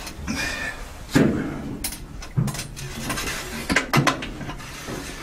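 A series of sharp metal knocks and clanks, the loudest a little over a second in, from work on the side of a stopped EMD 567B V16 diesel engine, done while checking the cylinders for water before a start.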